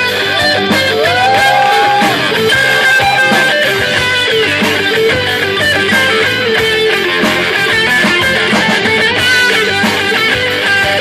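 Live noise-rock band playing an instrumental passage: strummed electric guitars over drums, with a guitar line bending and sliding its notes.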